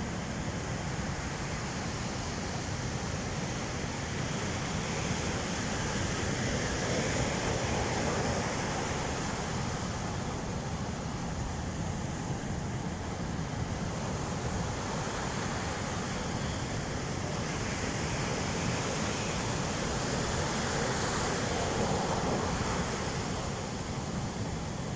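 Pacific Ocean surf on a sandy beach: a continuous wash of breaking waves that swells louder as bigger waves break, about seven seconds in and again around twenty seconds in.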